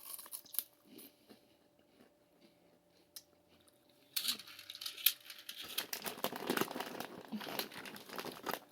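Snack packaging crinkling and rustling as it is handled, starting about four seconds in after a few light clicks.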